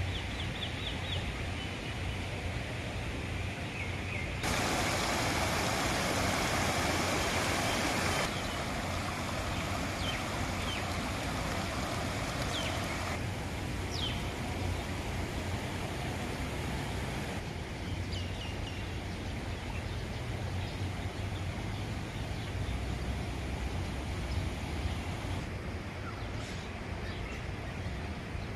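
Outdoor park ambience: a steady low rumble and hiss with small birds giving short chirps now and then. About four seconds in, a louder hiss starts abruptly and cuts off about four seconds later.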